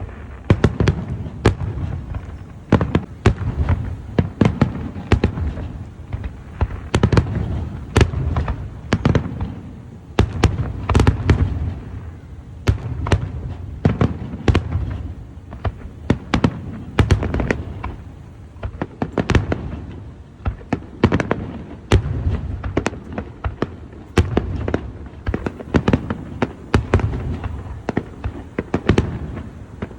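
Fireworks display: a continuous barrage of aerial shells bursting, sharp cracks coming several times a second over a low rumble of booms.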